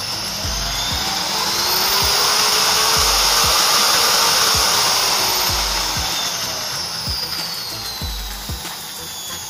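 Corded electric drill's motor running under a speed regulator: its whine rises in pitch as the knob turns the speed up, peaks about halfway, then falls again as it is turned back down.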